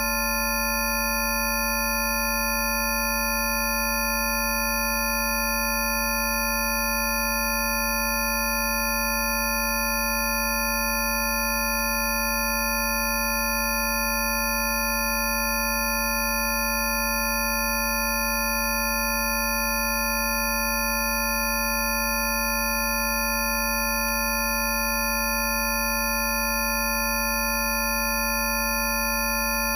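A steady blend of pure electronic sine tones at several fixed pitches, from a deep low hum up to high whistles, layered together and unchanging. These are generated Rife frequency tones.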